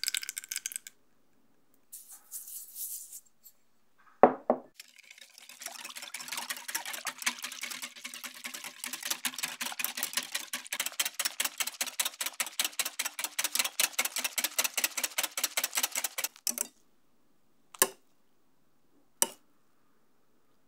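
Balloon whisk beating cream in a glass bowl, its wires clinking against the glass in a quick, even rhythm of about four or five strokes a second for some ten seconds, after one knock a few seconds earlier. Two sharp taps on the bowl come near the end.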